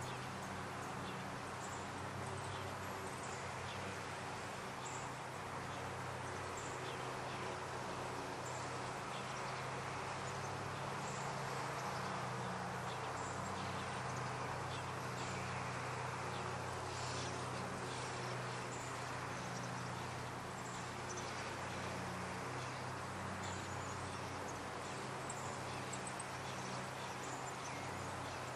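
Steady outdoor background: a low hum under a soft hiss, with scattered faint high chirps and ticks.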